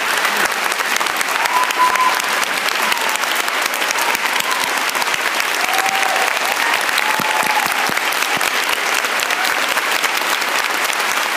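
Theatre audience applauding steadily, a dense even clapping.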